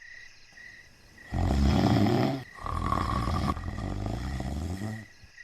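A person snoring: one loud rattling snore lasting about a second, then a quieter, longer one. This is simple snoring, the sound of air stirring as it passes through relaxed upper-airway tissue during sleep.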